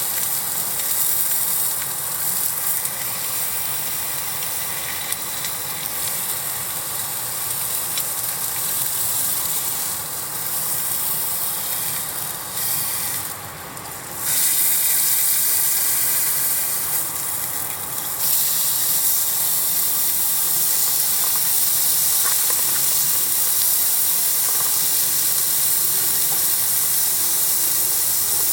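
Food sizzling on a hot iron plate: a steady frying hiss that thins out briefly about halfway through, then comes back louder and stays steady.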